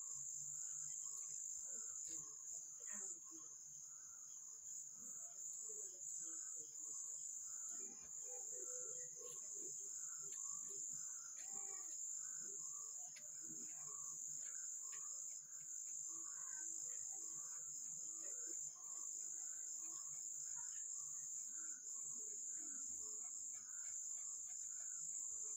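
Steady, high-pitched chirring of crickets, with a fainter, lower chirp repeating about once or twice a second.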